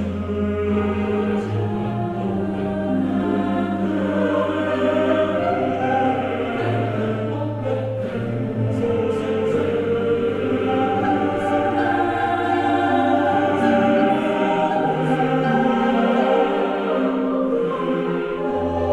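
Slow background music of sustained, choir-like voices over long held bass notes; the bass drops out about two-thirds of the way through and returns near the end.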